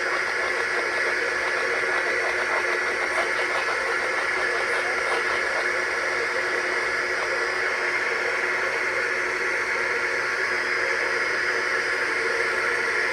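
Radio receiver static: a steady hiss of weak reception, with a faint, unintelligible voice buried in it during roughly the first half.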